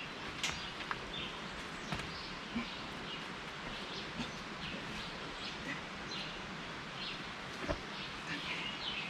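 Outdoor ambience: birds chirping briefly here and there over a steady background hiss, with a few soft knocks, the clearest about three-quarters of the way through.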